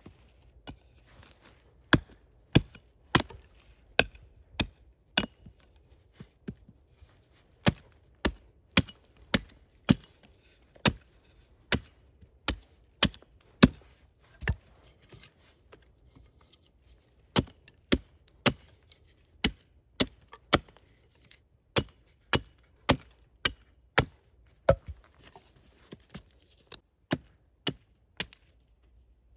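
Chopping on wood, a sharp blow about every half second, in runs broken by a short pause partway through; the blows are lighter near the end.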